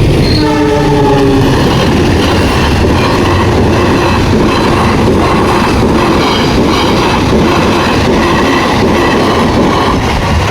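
A train passing at close range: a short locomotive horn blast, dropping slightly in pitch, in the first second or so. Then the wagons' wheels clatter steadily and rhythmically over the rail joints.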